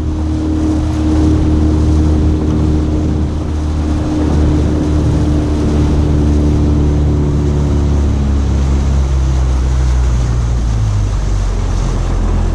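Boat motor running steadily under way, with water and wind noise over it; its higher hum thins out in the last few seconds.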